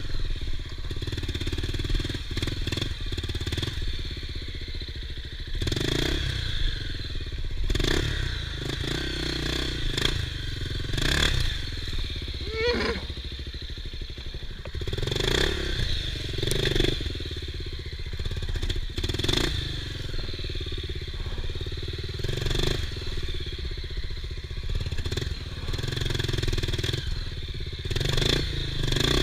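Honda XR 250 Tornado trail motorcycle's single-cylinder four-stroke engine running at low speed, the throttle opened and closed again and again, with knocks and clatter from the bike working over rough, muddy ground.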